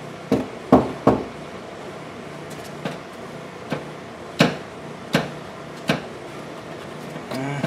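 A series of about eight sharp knocks at uneven intervals, most of them in the first half, from an Audi A4's front wheel and suspension area as it is worked by hand to reproduce a clunking noise. They sound lighter than the clunk being hunted.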